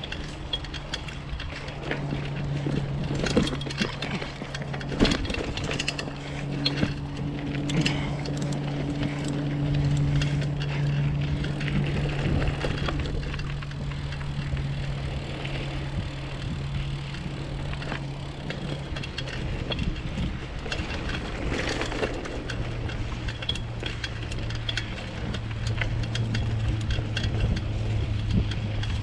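Bicycle being ridden along a trail: a steady low hum, dropping slightly in pitch about two-thirds of the way through, with frequent rattles and clicks from the bike.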